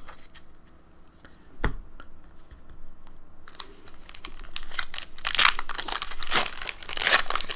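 A Pokémon booster pack's foil wrapper being torn open and crinkled by hand. A single sharp click comes about a second and a half in, then crinkling and tearing starts about halfway through and grows louder and busier toward the end.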